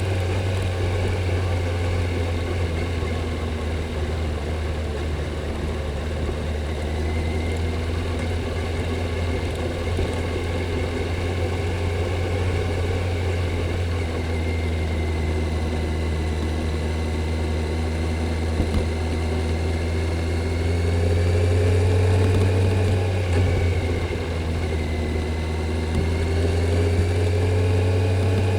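Stock Kawasaki Z900's inline-four engine and exhaust running steadily under way, with a deep low hum. The engine note rises and grows louder about two-thirds of the way through, eases off, then climbs again near the end.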